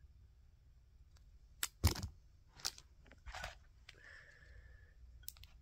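Crinkling of a wrapped bonbon's candy wrapper being handled: a few sharp crackles, the loudest about two seconds in, and a short rustle about halfway through.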